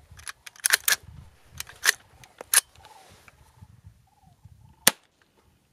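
Soft cracks of low-powered CCI Quiet .22 LR rounds fired one at a time from an AR-style .22 pistol, with sharp metallic clicks as the charging handle is worked by hand between shots. The rounds don't have enough oomph to cycle the action with the M&P 15-22 magazine adapter.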